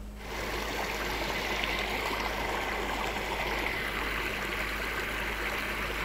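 Steady rush of water from a small waterfall and the stream below it.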